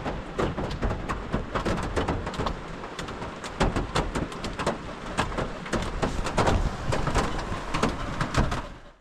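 Rain pattering on a car roof, heard from inside the car: dense, irregular drops over a low rumble. It cuts off abruptly near the end.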